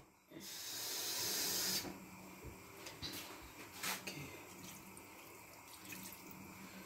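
Water running for about a second and a half near the start, then quieter trickling and a few light knocks as water is poured into a cooking pot of food.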